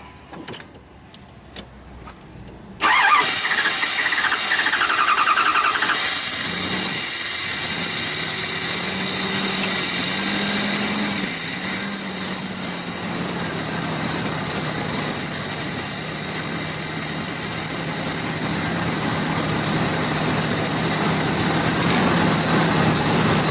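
2009 Dodge Durango engine catching on starting fluid about three seconds in, then running steadily with an even drone. Starting fluid keeps it going because the fuel pump delivers no fuel pressure.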